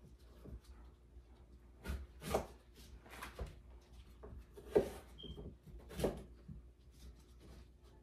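Kitchen knife cutting a cucumber into small pieces on a wooden cutting board: a handful of irregular knocks of the blade on the board, roughly a second apart.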